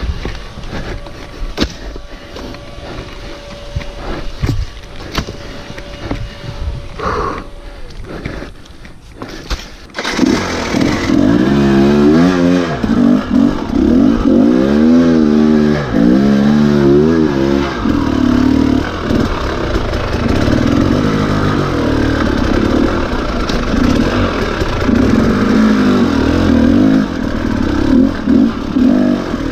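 Scattered knocks and clicks for about the first ten seconds, then a Husqvarna TE300 two-stroke dirt bike engine comes in abruptly, revs up and down several times and keeps running under changing throttle.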